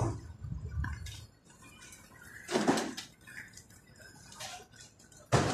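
City street noise with a low rumble at first, then a loud clatter about two and a half seconds in and a sharp knock near the end.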